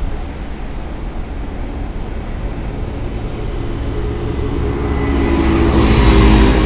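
Locomotive rumble with a deep steady hum, growing louder over the last couple of seconds as a Class 1200 electric locomotive draws nearer on the yard tracks.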